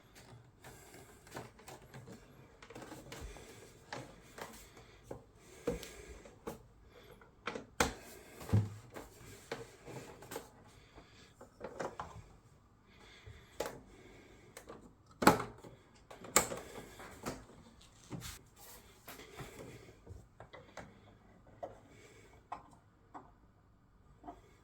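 Irregular handling noises: light clicks, knocks and rubbing, with a few sharper knocks about a third of the way in and again past the middle, thinning out near the end.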